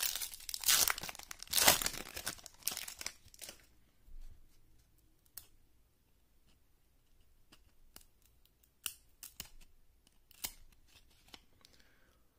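A foil trading-card pack wrapper being torn open and crinkled for about three and a half seconds. After that come scattered soft clicks and slides as the cards are pulled out and fanned through.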